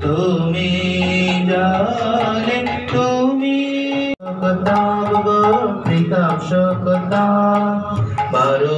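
A male voice singing a devotional hymn to a harmonium's sustained chords, with a two-headed barrel drum played alongside. The sound cuts out suddenly for a moment a little past four seconds in.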